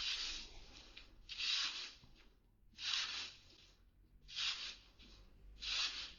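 Yard debris being scraped across a driveway in five even strokes, about one every second and a half.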